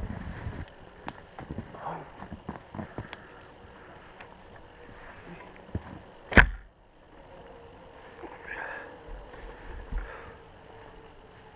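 Scattered light knocks and clicks, with one sharp thump about six seconds in, over a faint steady hum.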